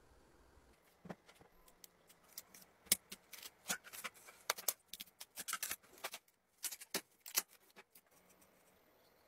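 A run of irregular light clicks, taps and scratchy ticks of handling, some sharper than others, dying away about eight seconds in.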